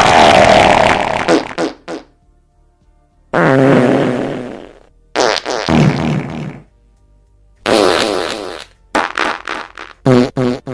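A series of farts one after another: four long buzzy ones of about one to two seconds each with short pauses between, then a quick run of short ones near the end.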